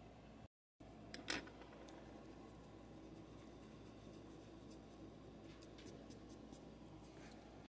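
Quiet handling of a white eraser on drawing paper: a sharp tap a little over a second in, then faint, scattered, scratchy ticks. The sound cuts out completely for a moment about half a second in.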